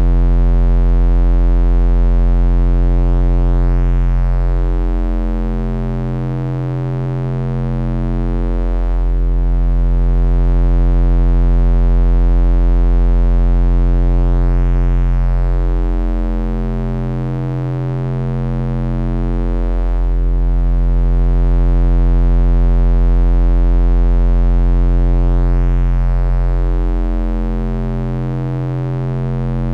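Synthesized bass drone: a deep, loud, steady hum with a stack of sustained tones above it. It swells and eases back about every eleven seconds, with slow sweeps moving through the higher tones.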